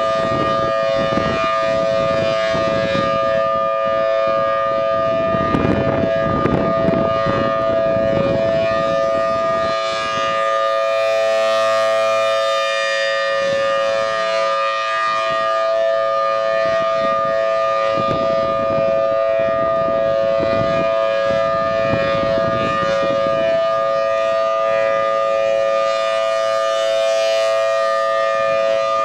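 Federal Signal Thunderbolt 1000T outdoor warning siren sounding at full pitch during a test, holding a steady chord of tones. A low rumble comes and goes beneath it.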